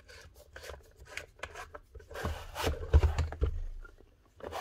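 Scrapes, rubs and a few dull knocks as a Bosch hammer is turned over by hand on a concrete workbench, the knocks loudest around three seconds in.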